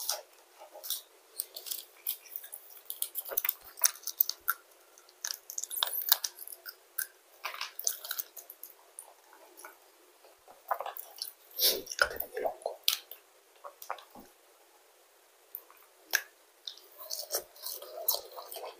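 A person chewing french fries close to a clip-on microphone: irregular small smacks and clicks of the mouth, with a denser run of sounds about two-thirds of the way through.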